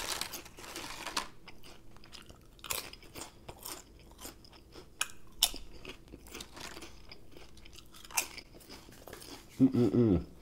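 Close-miked chewing of potato chips: a run of sharp, irregular crunches. A short hummed "mm" comes near the end.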